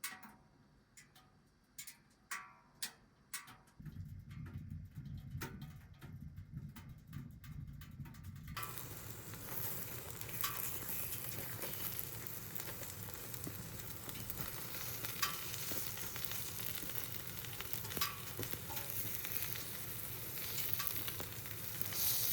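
A few light utensil clicks, then a low steady rush from a gas stove burner starts about four seconds in. Food begins sizzling in a hot pan about eight seconds in and keeps on, with an occasional clink of a utensil.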